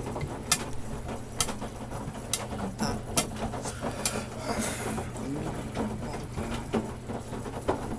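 Samsung Grande washing machine running its standard course: a steady low hum with sharp clicks a little under once a second, and a short hiss just before the middle.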